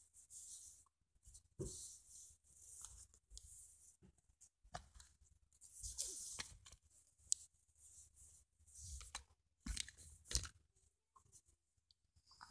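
Faint rustling and scraping of a phone being handled and settled against bedding, with scattered sharp knocks as it is moved.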